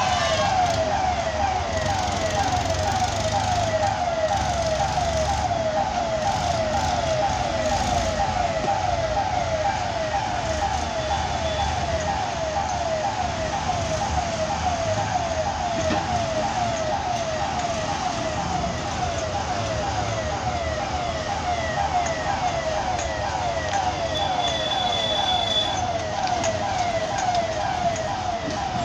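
Electronic warning siren at a railway level crossing: a falling tone repeating a few times a second without a break, over the low rumble of heavy lorries crossing the tracks.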